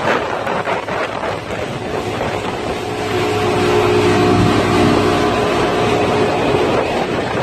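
Motorboat engine running under way while towing, over a rushing noise of wind and water. About three seconds in it grows louder and a steady engine hum stands out, easing again near the end.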